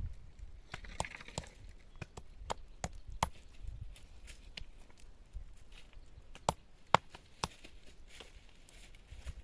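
Irregular sharp knocks of hard objects striking, roughly one or two a second, with the loudest few about six and a half to seven and a half seconds in.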